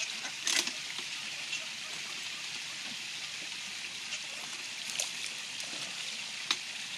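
Steady rush of running water, with a few short sharp splashes, the sharpest about six and a half seconds in, as mallards scramble on the pond.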